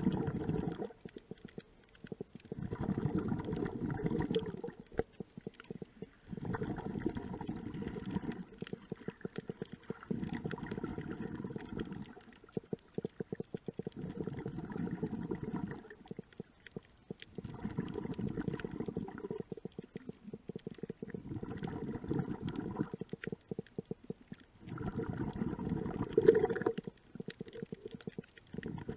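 Snorkeler's breathing through a snorkel, heard muffled through the water: about two seconds of breath sound repeating every four seconds or so, with short quiet gaps between breaths. Thin sharp clicks are scattered throughout.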